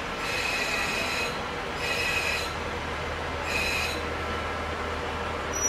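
KiHa 40-series diesel railcar braking to a stop alongside a platform, its wheels and brakes giving three short high-pitched squeals, each a second or less, over the low hum of its diesel engine.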